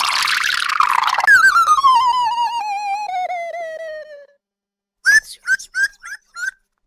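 Cartoon sound effects: a brief noisy swish, then a long wavering whistle-like tone that falls slowly in pitch over about three seconds. After a pause come five quick chirping tweets.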